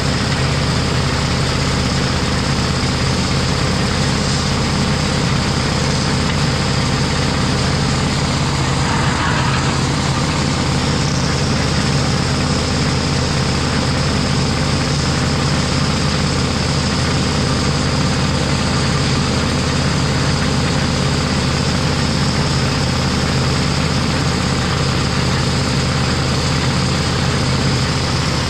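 Engine of a belt-driven drum concrete mixer running steadily.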